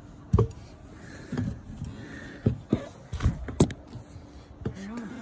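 Irregular knocks and clunks of someone climbing a ladder as shoes and hands strike the rungs, with rubbing from a handheld phone. The sharpest knocks come about half a second in and in a quick cluster two and a half to three and a half seconds in.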